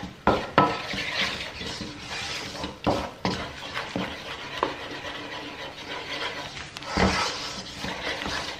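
Wooden spoon stirring and scraping a thick butter-and-flour roux around a non-stick pan, with a few sharp knocks against the pan.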